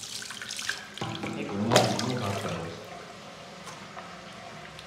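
Water poured from a mug over a wet kitten's head, splashing and running into a bathroom washbasin, with a louder splash a little under two seconds in.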